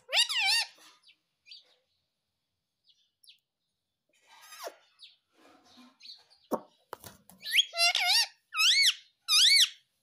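Indian ringneck parakeet calling: one loud shrill call at the start, then near the end a quick run of about four shrill calls, each rising and falling in pitch.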